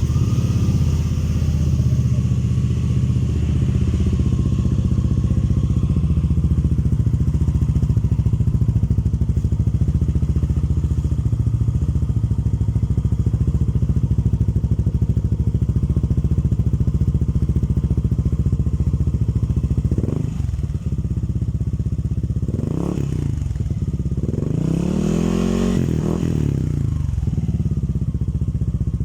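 Yamaha Aerox scooter's engine running through an aftermarket Kalkal exhaust pipe. It sets in loud and idles steadily, then is revved several times in the last third, the exhaust note climbing and falling with each blip, the longest rev near the end.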